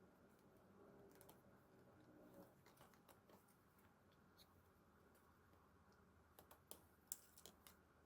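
Near silence with faint clicks and taps of photocards and their packaging being handled, and a quick run of sharper clicks near the end.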